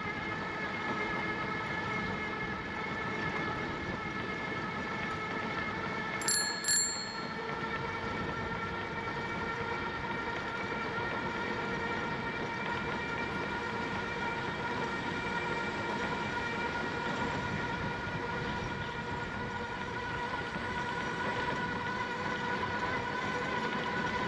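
Bicycle riding along a trail: a steady whine that drifts slowly in pitch over an even rush of wind and road noise, with two quick high-pitched clicks about six seconds in.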